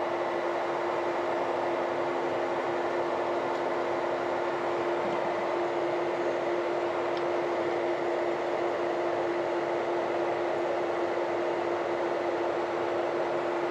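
Steady drone inside a running farm vehicle's cab: engine and cab blower making an even hum with one held tone.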